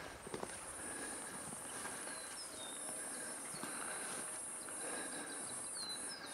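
An insect's steady, high-pitched buzz starts just after the beginning and cuts off near the end, with a few short bird chirps over it.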